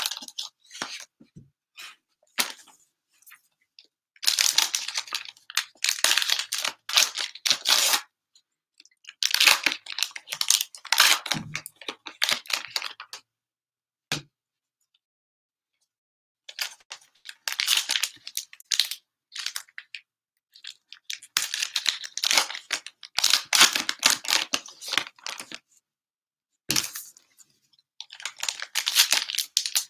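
Panini Mosaic cello pack wrappers being torn open and crinkled in the hands, in repeated bursts of tearing and crackling with short pauses between packs.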